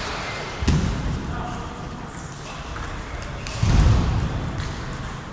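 Table tennis balls clicking on tables and bats in a busy sports hall, with voices in the background. Two loud, dull thumps land about a second in and near four seconds in.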